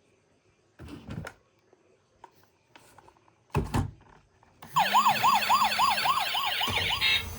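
A few plastic clicks and a thump, then a toy emergency vehicle's electronic siren switches on about two-thirds of the way in, in a fast yelp that rises and falls about three times a second.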